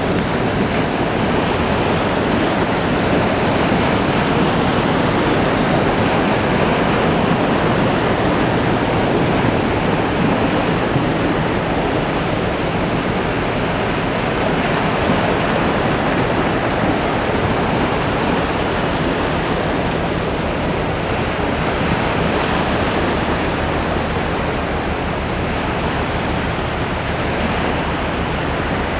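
Waves of a large ship's wash surging and washing onto the shore, a steady loud rushing of water.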